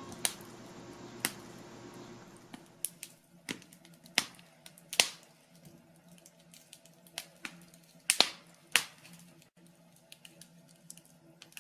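Wood fire in a fireplace crackling: faint, irregular sharp pops and snaps over a quiet steady background.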